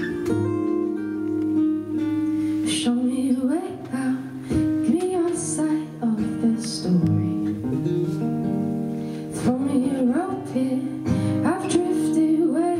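Live acoustic guitar with a woman singing over it; the guitar plays alone at first and the voice comes in about three seconds in.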